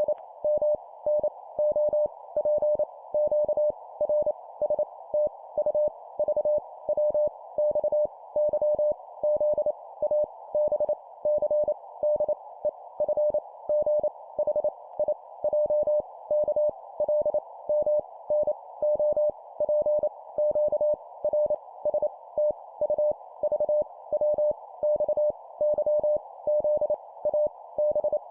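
Morse code (CW) sent at 25 words per minute: a single tone of about 600 Hz keyed rapidly on and off in dots and dashes, spelling out letters in short groups, over a steady narrow band of hiss like a radio receiver's filtered noise.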